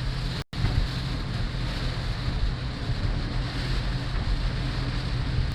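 Heavy wind-driven rain pelting a moving car, heard from inside the cabin as a dense steady hiss over the low drone of the car and road. The sound cuts out for an instant about half a second in.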